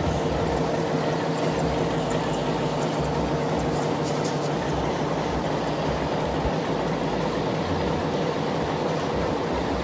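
Model diesel locomotive running steadily: an even mechanical hum with a constant mid-pitched tone, over an uneven low rumble.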